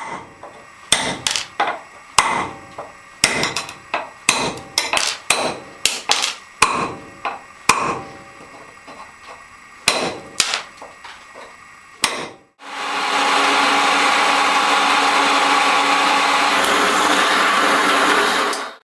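Hand-chipping of a black granite plaque's edge: about twenty sharp, irregular strikes of a hammer on a chisel knocking off chips. After a brief break, at about two-thirds of the way in, a water-fed drill runs with a steady whir, boring into the granite for about six seconds.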